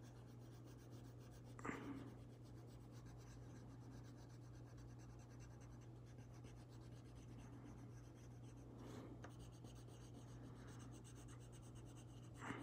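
Faint scratching of a colored pencil shading on paper, with one brief louder stroke about two seconds in.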